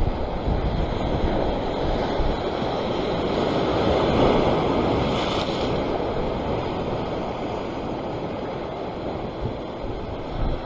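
Sea surf washing against a rock shore, one surge swelling to a peak about four seconds in and then easing off, with wind gusting on the microphone.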